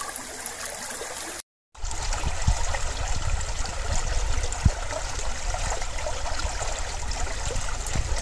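Shallow rocky stream flowing and trickling, a steady rush of water with no voices. About a second and a half in the sound drops out briefly, then the water comes back louder and deeper.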